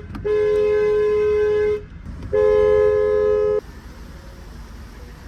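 A horn sounded in two long blasts of about a second and a half each, a half-second apart. Each blast is a steady two-note chord.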